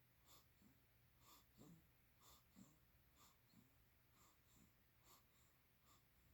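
Faint, wheezy snoring: short soft breaths recurring about once a second, some in quick pairs.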